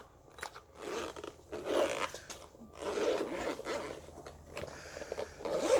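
Zipper of a soft tool bag being pulled open in several uneven strokes, with rustling and scraping of the bag.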